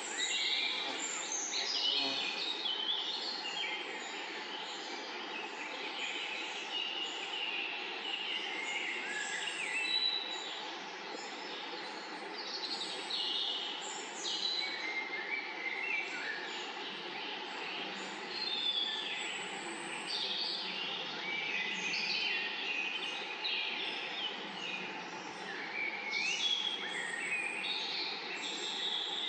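Small birds chirping and trilling in many short, quick phrases over a steady hiss of background noise.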